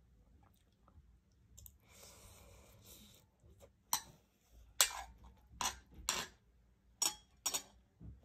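Close-miked eating sounds: a short hiss a couple of seconds in, then six sharp, crisp clicks of chewing, roughly half a second to a second apart.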